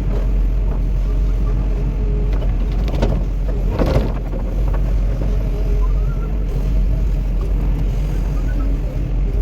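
Cat 316E excavator's diesel engine running steadily under work, with a brief clatter about four seconds in.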